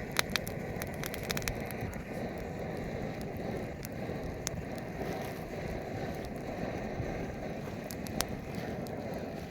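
Campfire burning: a steady low rush with scattered sharp crackles and pops, a quick cluster in the first second and a half and two more near the end.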